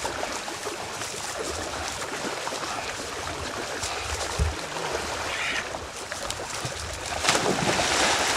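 Pond water splashing and sloshing, with a brief low bump about halfway and a louder stretch of splashing near the end.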